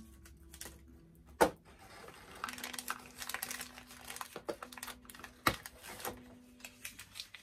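Small plastic doll accessories and packaging being handled: a scatter of light clicks and rustles, with two sharper clacks, about a second and a half in and again near five and a half seconds.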